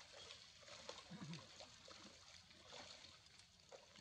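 Near silence: faint outdoor background hiss with scattered light clicks.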